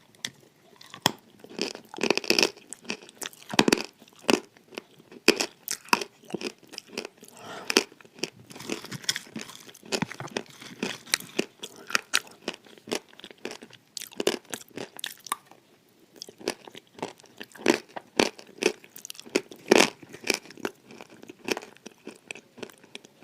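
A person biting and chewing crunchy dry edible clay right at the microphone, giving a run of irregular sharp crunches and crackles.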